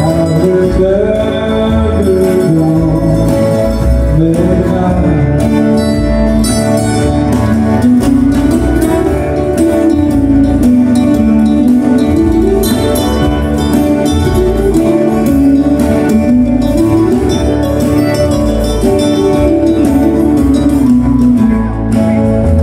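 Live country-western music: several acoustic guitars playing, with a melody line wandering up and down over steady chords.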